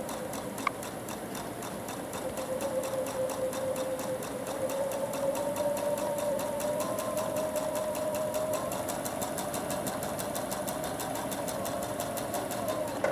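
Electric sewing machine stitching through layered fabric at a steady speed: a held motor whine with rapid, even needle strokes, stopping right at the end.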